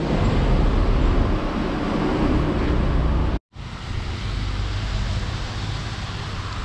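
Wind buffeting the microphone, a steady rushing noise with a deep rumble. After a brief cut to silence about three and a half seconds in, the hiss of light traffic on a wet road.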